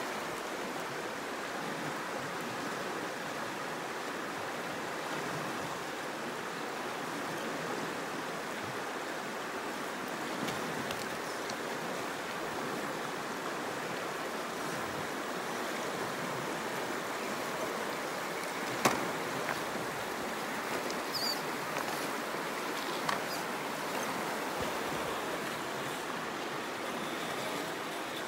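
Steady rush of flowing creek water, with a single sharp knock about 19 seconds in.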